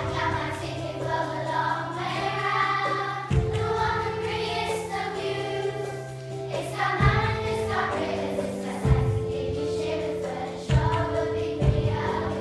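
A group of children singing a song together as a choir over an instrumental backing, the chords changing every few seconds.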